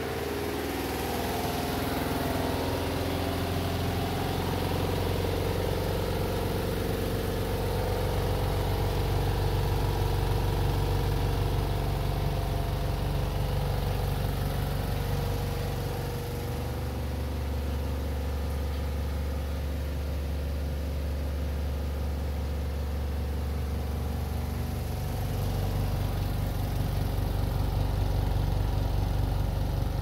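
Spin dryer of a Ramtons 10 kg twin-tub washing machine running steadily, its motor and drum giving a low hum as it spins water out of the clothes. The hum shifts in pitch a little about halfway through and again near the end.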